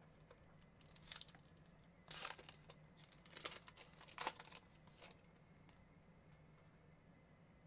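A trading-card pack wrapper torn open and crumpled by hand: a few short crackly rips and crinkles about one, two, three and a half and four seconds in, the loudest just after four seconds.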